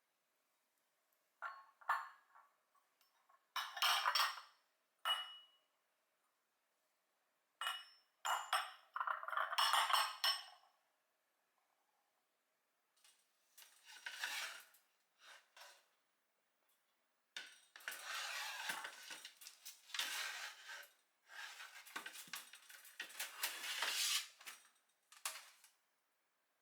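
Dishes and cutlery clinking and clattering as they are handled, in several separate bursts with pauses between and a longer stretch of rattling in the second half.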